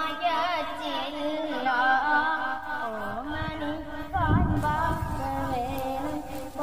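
A high voice singing a slow melody with wavering, gliding ornaments over a steady held drone note. A low rumble comes in briefly about four seconds in.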